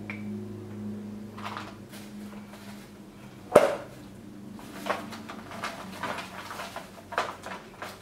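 Scattered clicks and knocks from the washing machine's control module casing as it is handled and opened by hand, with one loud sharp knock about three and a half seconds in.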